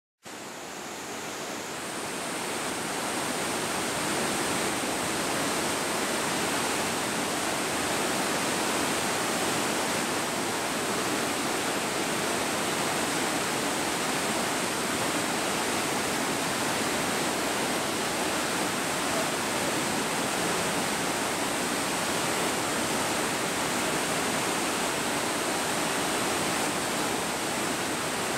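A river rushing through white-water rapids in a rocky gorge: a steady, even rush of water that fades in over the first few seconds.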